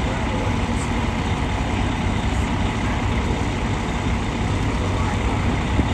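Steady low rumble of an idling heavy engine, with wind buffeting the microphone.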